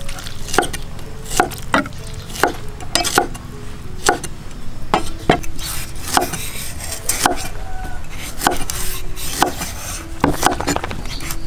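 Cleaver chopping on a thick wooden chopping block: sharp, irregular knocks, one or two a second, as vegetables are cut.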